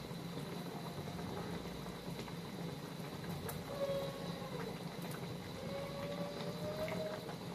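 Thick spiced gravy boiling in a steel kadhai on a gas stove, a steady bubbling.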